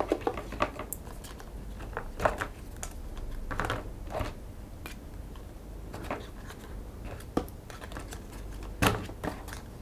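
Light plastic clicks and clacks of drone propellers being picked up and knocked together, irregular taps with a sharper click about nine seconds in.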